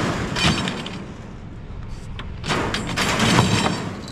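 Scrap being loaded into a steel-mesh utility trailer: a white tubular frame scraping and clanking against the trailer's expanded-metal sides and bed. There is a short clatter at the start and a longer rattling stretch from about two and a half seconds in, with a sharp knock in the middle of it.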